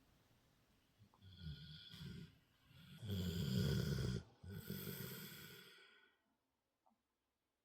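Sleeping cat snoring: rasping snore breaths start about a second in, grow loudest in the middle with a brief break, then fade out and stop near the end.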